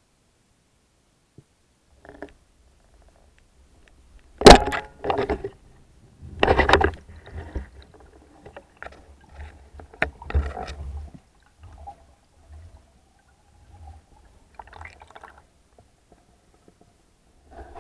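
Water sounds with irregular knocks and bubbling splashes; the loudest is a sharp knock about four and a half seconds in, with more bursts around seven and ten seconds in.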